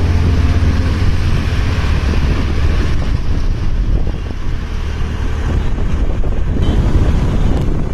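Wind buffeting the microphone over the steady low rumble of a vehicle travelling along a highway.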